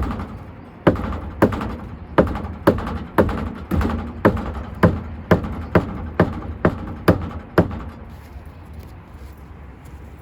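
A hand tool, likely the screwdriver in use, tapping or knocking on a hard surface in an even run of about fifteen sharp strikes, roughly two a second, each with a short ring. The knocking stops a little before the end.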